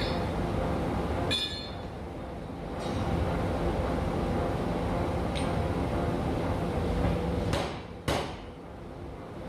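Massey power hammer running with a steady hum, with a ringing metallic clink of steel tooling about a second and a half in and two sharp metal knocks near the end.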